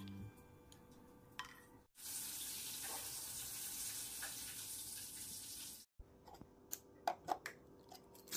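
A steady hiss, mostly high-pitched, that starts and stops abruptly and lasts about four seconds, followed by a few light clicks and knocks.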